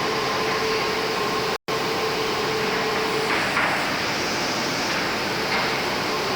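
IMEAS LCSI 190 two-head wide-belt sanding machine running with a steady mechanical hum and hiss, with a faint steady tone that stops about three seconds in. The sound drops out for a split second about one and a half seconds in.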